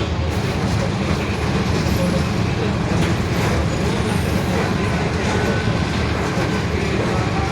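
A Mercedes-Benz OF-1721 BlueTec 5 city bus under way, its four-cylinder diesel running steadily under a constant low rumble of drivetrain and road noise, with the differential growling.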